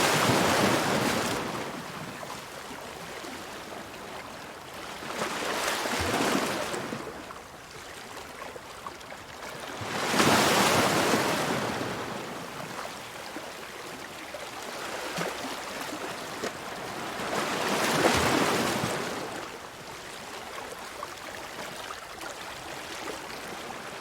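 Ocean waves washing in, four louder swells of surf coming in every four to eight seconds, with a softer steady wash between them.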